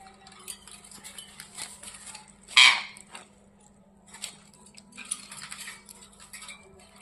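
Ringneck parrot moving about in its cage, with light clicks and taps of beak and feet on metal bars and dishes. About two and a half seconds in comes one short loud burst.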